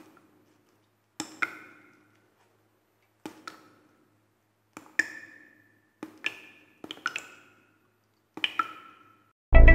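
Sparse, sharp woody clicks, mostly in close pairs every second or two, each with a brief ringing tone, separated by dead silence. Near the end a loud musical hit with a deep bass comes in.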